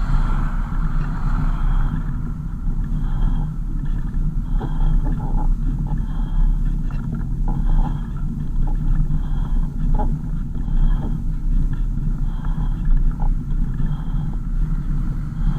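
Car driving, with a steady low engine and road rumble heard from inside the cabin. A faint short high tone repeats about every second and a half.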